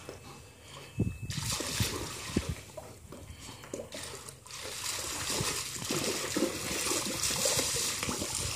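Water splashing and sloshing as a dog wades and paws through shallow pool water, growing denser and more continuous about halfway through.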